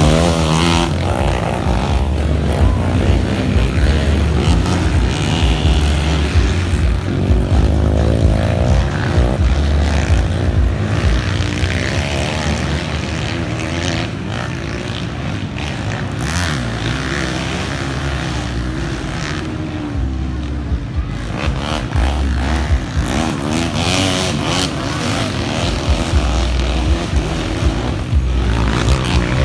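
Dirt-bike engines racing on a grasstrack, revving up and down repeatedly as the bikes accelerate and shift.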